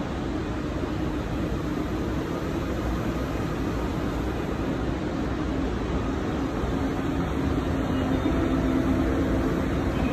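Steady running noise inside a passenger train: a low rumble with a hum that grows louder in the last few seconds.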